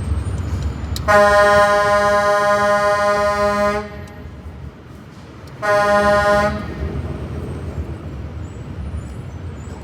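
A vehicle horn sounds twice, one long blast of nearly three seconds and then a shorter one of about a second, over a low rumble.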